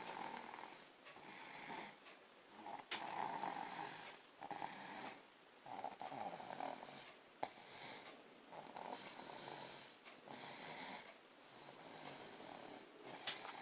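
Snoring: noisy breaths one after another, roughly every one to one and a half seconds, with a few short sharp clicks among them.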